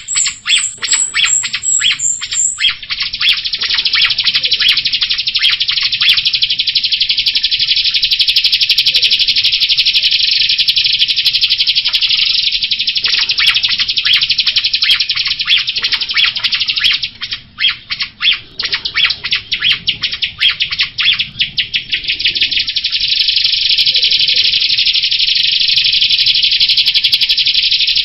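Jalak rio, a starling kept as a songbird in Indonesia, singing a rapid, dense chatter of high chirps. The chatter breaks into separate quick chirps for a few seconds past the middle, and a brief higher trill is heard in the first couple of seconds.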